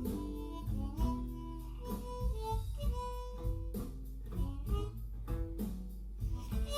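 Blues harp (diatonic harmonica in A) improvising blues phrases of short held and bent notes, over a guitar accompaniment.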